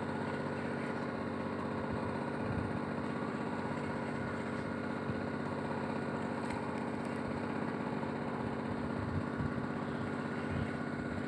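A small engine idling steadily, an even running hum with no change in speed.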